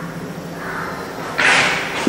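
Faint room hum, then about one and a half seconds in a sudden loud burst of noise, like a rustle or scrape, lasting about half a second.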